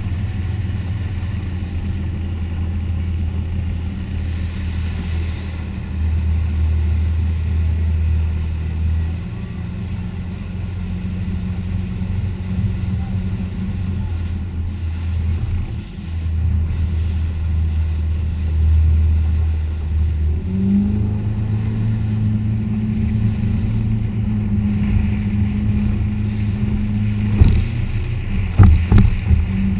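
A 1989 Seaswirl Tahoe under way at speed: a steady low engine drone with rushing water and wind, the engine pitch stepping up about two-thirds of the way through. A few sharp knocks come near the end.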